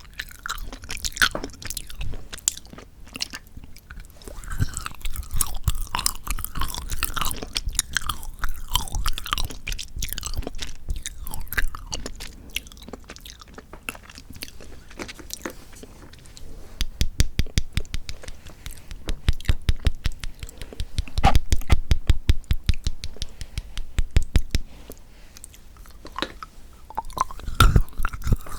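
Close-miked chewing and crunching of chocolate. Irregular crackly bites and chews come first, then a long run of quick, even crunching chews in the second half.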